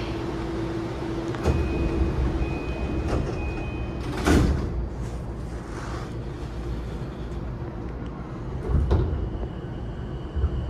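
The passenger doors of a JR E233-5000 series electric train sliding shut: a steady high warning tone sounds as they start to move, and they meet with a loud thud about four seconds in. A second thump comes near nine seconds in, after which a steady high tone begins.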